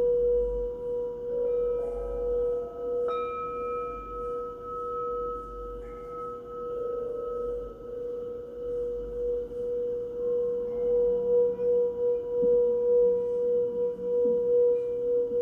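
Singing bowls ringing in a sound bath: one low bowl sustains a steady tone throughout while higher bowls sound in and fade out over it, one struck about three seconds in.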